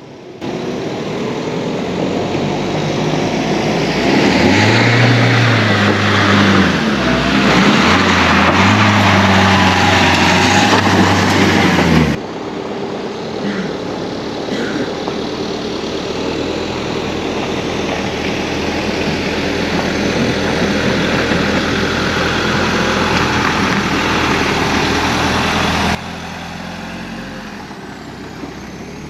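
Campervan engine revving under load as the van drives up a slippery, snow- and ice-covered incline, its note rising and falling, over a wash of tyre noise. The sound changes abruptly about twelve seconds in to a steadier, quieter engine and tyre run.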